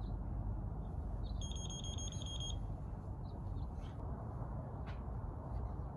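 Fusion splicer beeping: a quick run of about seven high, even beeps lasting about a second, starting about a second and a half in, as the arc splice cycle ends. Underneath is a steady low background rumble.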